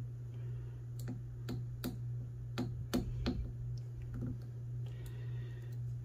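Lock pick clicking against the pins of a century-old Yale & Towne push padlock as the pins are reset: about seven sharp metallic ticks at uneven spacing in the first few seconds, over a steady low hum.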